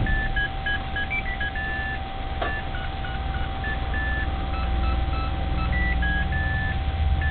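General Electric digital washing machine playing its end-of-cycle tune: a melody of short electronic beeps at changing pitches, several notes a second, signalling that the wash is finished. A single click sounds about two and a half seconds in.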